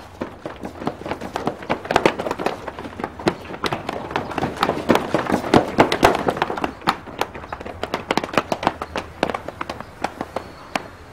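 Running footsteps of several people on pavement, fast and irregular, thinning out and getting quieter near the end.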